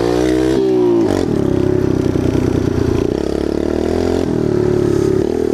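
Loud Kawasaki KLX 110 pit bike, a small air-cooled single-cylinder four-stroke, under way. The engine revs up, drops in pitch about a second in, then runs fairly steadily at speed with a brief dip late on.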